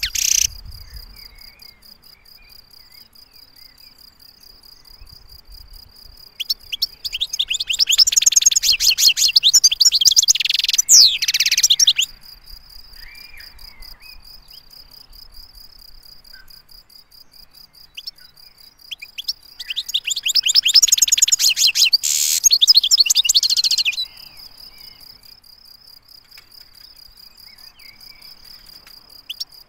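European goldfinch singing: two long bursts of rapid, twittering song, each about five seconds, with a few soft short notes in the pauses between. A steady thin high tone runs underneath throughout.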